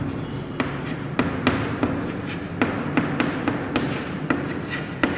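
Chalk writing on a chalkboard: irregular sharp taps and short scratches as the letters are written, over a low steady background hum.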